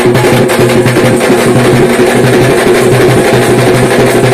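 Loud dappu frame-drum music over a steady, held low tone, with the drumming quieter than the drone.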